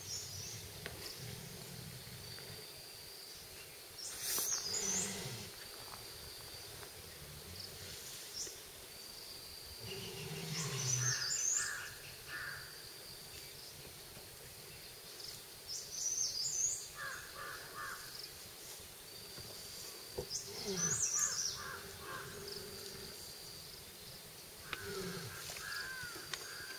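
A tiger holding down a wild boar, with short low growls breaking out every five or six seconds. Birds call repeatedly throughout.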